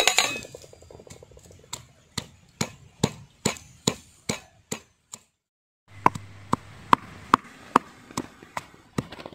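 Garlic cloves being pounded with a stone pestle in a stone mortar: steady thuds about two a second. A brief clatter comes at the start, and the pounding breaks off for under a second about five seconds in.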